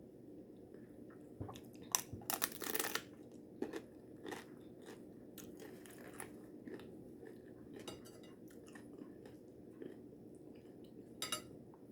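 A person biting into and chewing a taco: a cluster of crunching bites about two to three seconds in, then quieter, scattered chewing.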